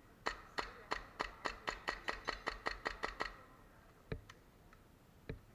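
Airsoft gun firing a quick string of about fourteen single shots, four or five a second, followed by two lone shots near the end.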